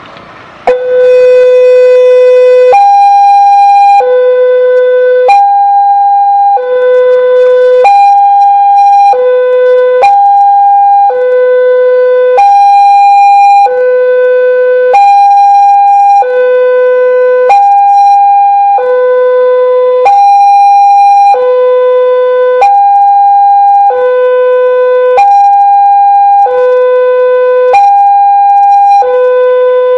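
Electronic railway level-crossing alarm, the melodious type used at Daop 8 Surabaya crossings. It starts abruptly about a second in and alternates steadily between a low and a high tone, each held a little over a second: the warning that a train is approaching and the crossing is closing.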